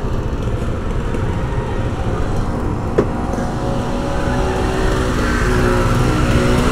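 Road traffic: a motor vehicle engine running close by over a steady rumble, with a single sharp click about three seconds in.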